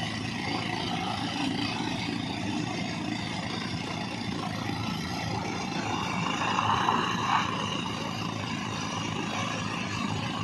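Diesel engine of heavy construction machinery running steadily, with a louder swell about six to seven seconds in.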